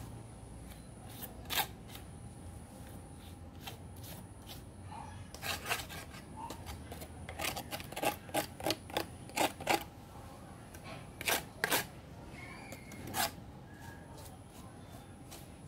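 Small metal hand trowel scraping and chopping at gritty garden soil: short sharp scrapes and ticks, scattered at first, then a quick run of about four strokes a second near the middle and a few more later.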